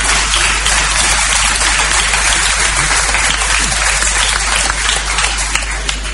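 Live audience applauding, a steady wash of clapping that stops at the end.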